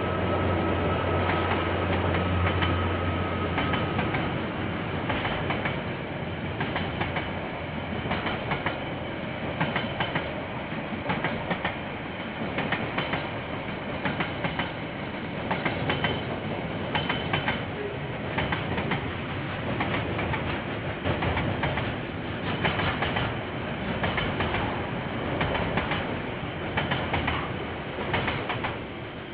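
Diesel freight train passing: the locomotive's engine drones with a steady whine for the first few seconds, then a long line of container wagons rolls by with the clickety-clack of wheels over rail joints.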